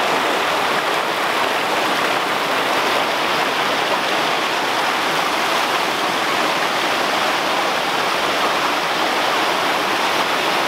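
Creek water rushing down a small rocky cascade, white water spilling over boulders in a steady, even rush.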